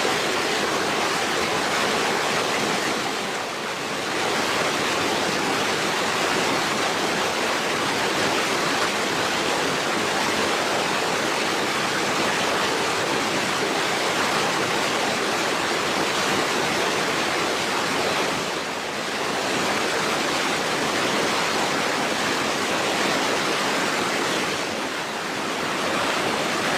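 Steady rushing of water, a dense even hiss that eases briefly about three and a half seconds and nineteen seconds in.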